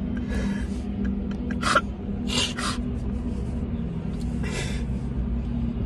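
A man crying: several sharp sniffs and breathy sobbing gasps over the steady low hum of a car cabin.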